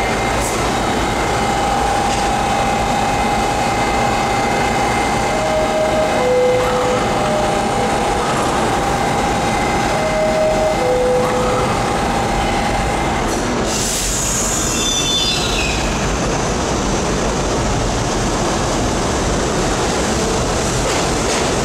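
R-68 subway train standing at the platform with a steady hum, its two-note descending door chime sounding twice. About two-thirds through comes a sudden hiss and the train starts off, its wheels and motors rumbling as it pulls out.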